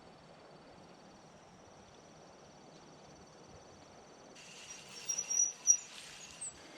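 Insects trilling steadily at a high pitch, with a louder burst of bird chirps about five seconds in.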